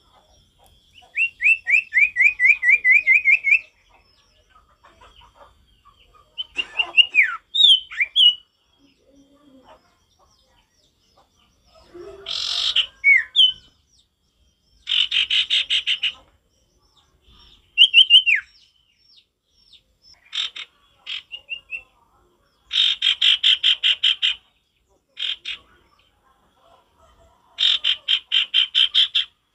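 Common iora singing: a quick run of about ten down-slurred whistles, then scattered whistled phrases and several harsh rattling trills lasting a second or two each.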